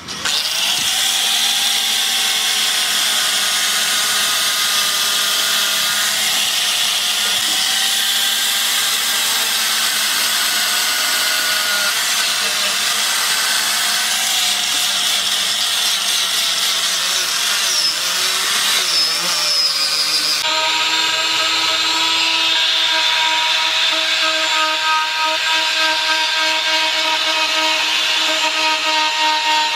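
Angle grinder with a sanding disc grinding into a wooden block, its motor whine wandering in pitch as it is pressed into the wood, over a steady abrasive hiss. About 20 seconds in it gives way abruptly to a smaller rotary tool with a carving burr cutting the wood, a steadier, higher whine.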